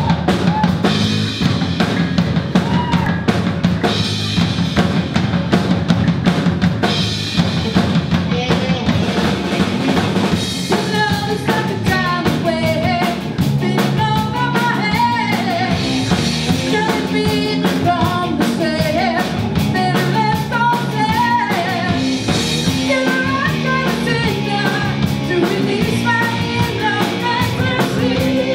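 Live band playing: a drum kit keeps a steady beat with electric guitar, and a woman's lead vocal comes in about ten seconds in.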